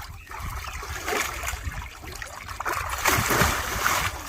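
Water splashing and sloshing in a shallow paddling pool as a child moves about in it, loudest about three seconds in.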